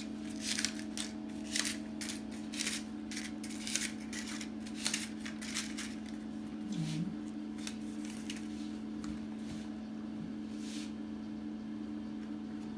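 Paper muffin liners crinkling and rustling as they are pressed into metal cake molds, in quick bursts through the first six seconds or so and once more near the end. A steady low hum runs underneath.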